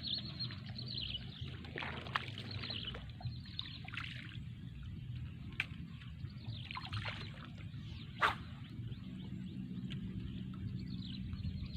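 Birds calling in short repeated down-sweeping chirps over a steady low rumble, with a sharp click a little past eight seconds in.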